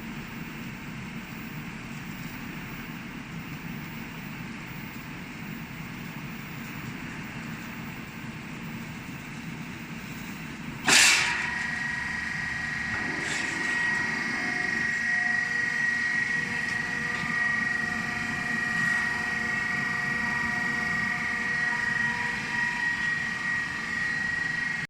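Hydraulic shear butt welding machine running with a steady low hum. About eleven seconds in there is a single sharp, loud clank, and after it a steady high whine of several tones carries on, louder than before.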